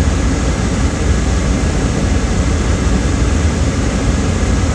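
Car air conditioning blowing steadily inside the cabin, over a low engine rumble.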